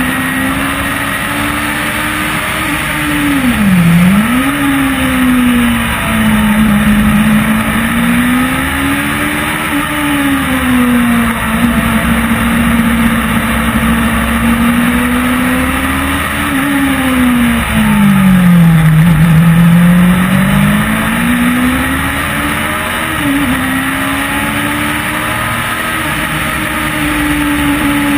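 Onboard sound of a small race car's engine running hard at speed. Its note drops sharply about four seconds in, and again more slowly from about sixteen to twenty seconds, as the car slows for corners. Each time it then climbs back as the car accelerates.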